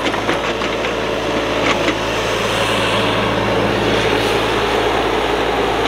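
Kubota mini excavator's diesel engine running steadily.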